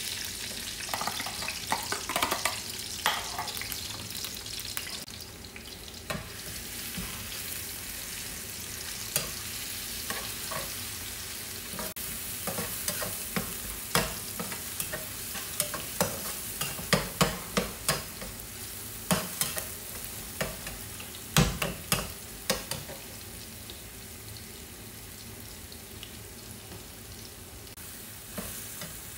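Noodles sizzling as they fry in oil in a nonstick pan, with a spatula scraping and tapping against the pan as it breaks them up and stirs them. The tapping is busiest in the middle stretch.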